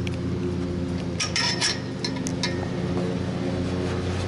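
Metal clinking from a chain-link gate and its latch, a quick cluster of clinks a little after a second in and two more soon after, over a steady low mechanical hum.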